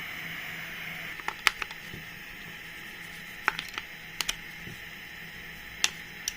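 Scattered light clicks and taps, about ten in small clusters, from small tools and parts being handled on an electronics repair bench, over a steady hiss.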